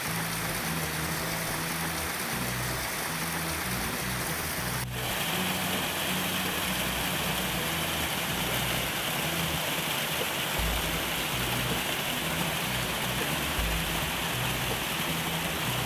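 Rushing water of a small mountain waterfall cascading over rocks, a steady hiss. About five seconds in it changes abruptly to a closer, brighter rush. Faint background music with a low bass line runs underneath.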